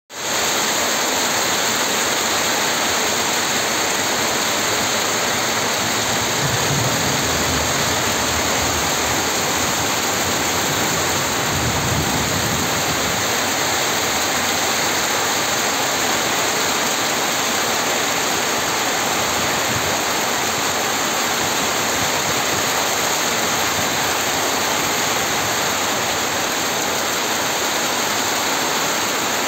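Rain falling steadily: a dense, even hiss with no break.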